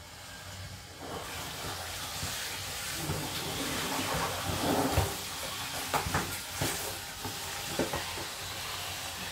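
Water running steadily from a handheld shower hose into a plastic basin and over the shower floor, a constant hiss and splash, with a few knocks and bumps about halfway through.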